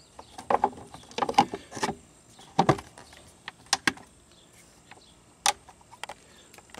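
Plastic clicks and knocks from a car's engine air-filter box as the filter is slid back into the housing and the lid is pressed down onto it. The clicks come in short clusters about once a second, with a last single click about five and a half seconds in.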